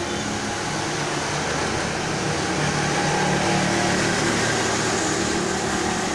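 A steady machine hum, with no separate keystrokes standing out.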